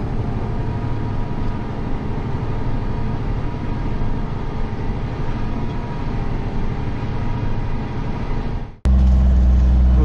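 John Deere 8270R tractor running steadily under load while pulling a seed drill, heard from inside the cab as an even engine drone. About nine seconds in it cuts off suddenly and gives way to a louder, deeper engine drone from another vehicle.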